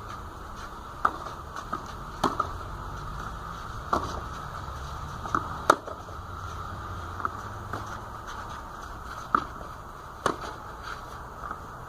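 Rain falling: a steady hiss with irregular sharp ticks of drops striking close by, about six of them, unevenly spaced.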